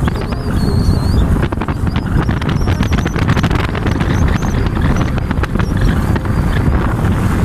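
Wind buffeting the microphone, a steady low rumble, with a quick run of clicks and rattles from about one and a half to four seconds in.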